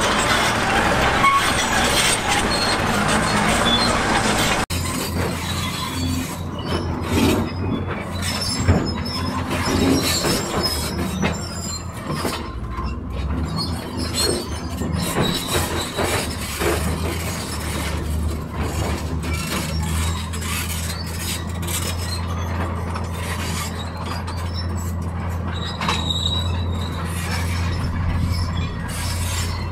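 Excavator at work: a steady diesel engine drone with metallic squeals and clanks. For the first few seconds, until a sudden change, the noise is louder and rougher.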